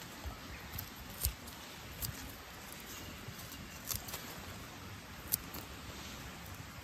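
Yamatokihokori, a nettle-family wild green, having its upper leaves stripped from the harvested stems: about six short, sharp snaps and clicks at uneven intervals over faint rustling.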